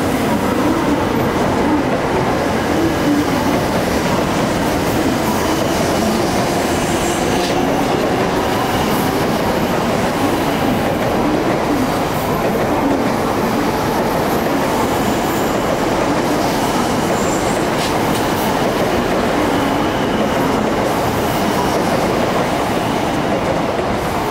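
A Shinkansen bullet train rolling slowly past on the tracks: a steady, even rumble and hiss of wheels on rail, with a few faint clicks from the wheels.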